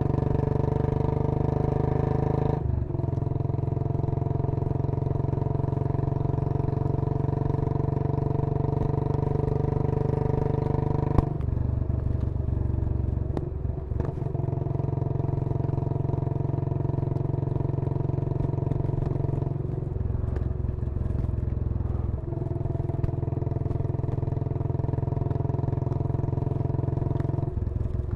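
Royal Enfield Bullet 500's single-cylinder four-stroke engine running at a steady pitch, its note breaking and shifting abruptly several times. There is one sharp click partway through.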